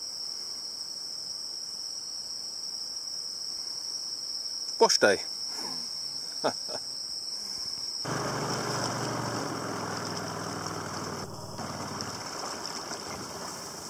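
Steady high-pitched drone of jungle insects. About eight seconds in it gives way to a louder noise with a low hum under it.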